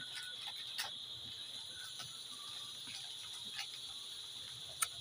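Steady high chirring of crickets, with a few faint clicks from small plastic parts being handled, the sharpest one near the end.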